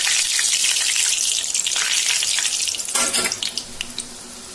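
Mysore bonda balls of maida batter deep-frying in hot oil, a loud steady sizzle. About three seconds in there is a brief flurry of crackles, after which the sizzle is quieter.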